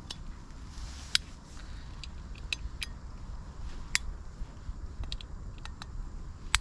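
Small, sharp metallic clicks and ticks from a stuck bottle-opener attachment being picked at with fingernails, the sharpest about a second in, at about four seconds, and just before the end.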